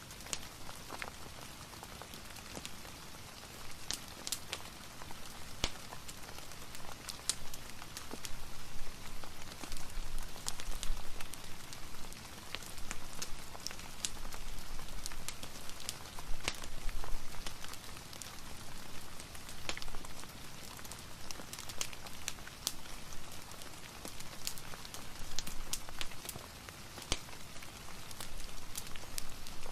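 Steady rain falling mixed with a crackling fireplace: an even hiss scattered with frequent sharp pops and ticks.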